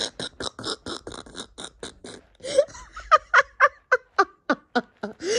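A woman laughing hard: a quick run of breathy, near-silent laughs, about five a second, that turns about halfway through into voiced ha-ha bursts.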